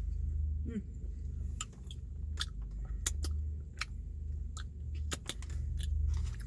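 Close-up chewing and smacking on a mouthful of burger: irregular wet mouth clicks, several a second, over a steady low hum.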